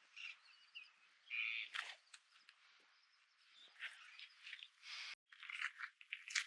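Footsteps on the beach, a string of irregular short crunches and scuffs.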